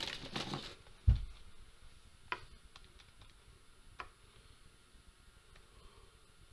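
A single low thump on the desk about a second in, followed by a few sparse, faint clicks of calculator keys being pressed.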